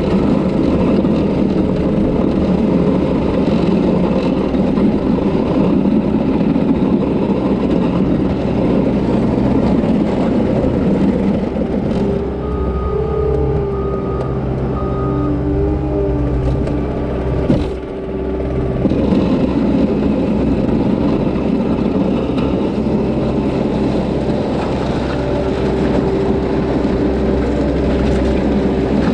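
Diesel engine of a Cat track skid steer running and working steadily. For several seconds around the middle it settles into a slightly quieter, more even note with a clear whine in it. A brief sharp knock comes just before it picks back up.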